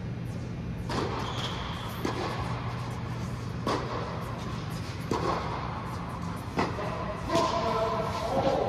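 Tennis rally: balls struck by rackets and bouncing on the court, a sharp hit every second or two, over the steady low hum of the indoor tennis bubble's air blower. Voices come in near the end.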